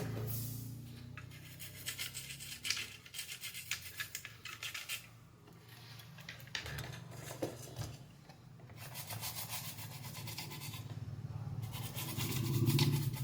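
A brush scrubbing freshly soldered joints on a circuit board to clean them: quick back-and-forth rubbing strokes in several spells, with short pauses between, over a steady low hum.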